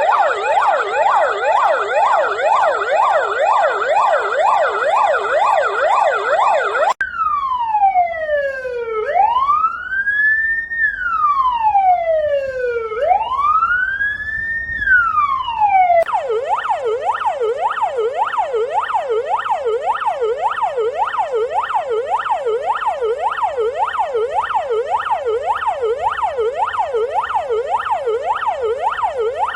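Several emergency-vehicle sirens on lines of Russian EMERCOM rescue and fire vehicles, sounding together in a mass tribute. A fast warbling yelp changes abruptly about seven seconds in to a slow rising and falling wail, with the sirens slightly out of step. About sixteen seconds in it changes abruptly back to the fast yelp.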